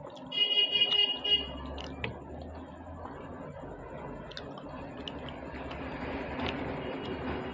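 Wet eating sounds: luchi being dipped in and mixed with cholar dal and chewed, building to a louder stretch near the end. A brief high-pitched tone sounds just after the start and is the loudest thing heard.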